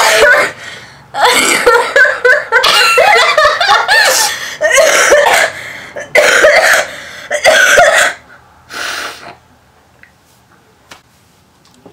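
A young woman coughing and laughing in loud repeated bursts for about eight seconds, then one short burst and quiet; the coughing comes from her being sick.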